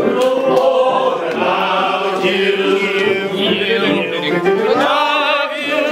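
Several voices singing together, holding long notes with vibrato.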